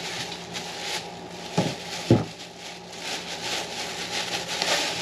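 Packing material rustling and crackling as parts are taken out of the box, with two sharp knocks at about one and a half and two seconds in as pieces are set down.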